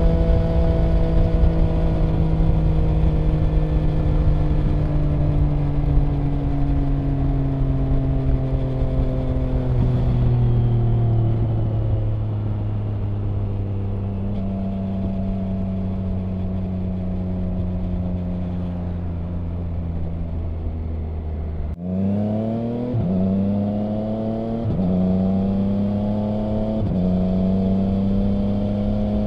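Triumph Trident 660's three-cylinder engine through a Mivv Delta Race aftermarket exhaust, heard from the rider's seat. For the first twenty seconds the note falls slowly as the bike rolls off and slows. Then it accelerates hard, the pitch climbing and dropping back with quickshifter upshifts about every two seconds.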